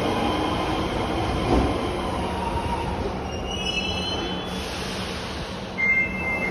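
Osaka Metro Midosuji Line subway train running into the platform and slowing, its rumble fading, with high wheel and brake squeals about three to four seconds in and a steady high squeal starting near the end.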